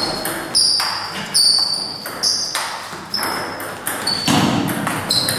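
Table tennis rally: the ball clicking back and forth off the bats and the table, about two hits a second, each with a short high ping.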